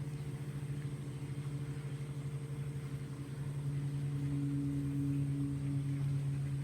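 Steady low machine hum with a few constant tones, growing a little louder about two-thirds of the way through.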